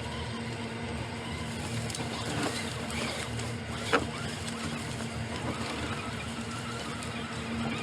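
Train running along the rail line: a steady engine hum with a few sharp clacks, the loudest about four seconds in.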